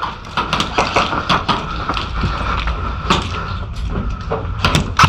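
Scattered sharp clicks and snaps of airsoft play, shots and BB impacts coming irregularly, with a quick cluster of several strong ones near the end.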